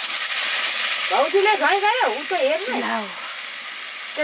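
Rice sizzling in hot oil in an iron wok as water is poured in and a ladle stirs it: a steady hiss. A high voice is heard for about two seconds in the middle.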